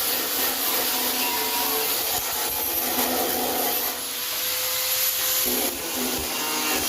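Angle grinder working on steel C-channel, a steady rasping grind with a faint steady whine in the middle.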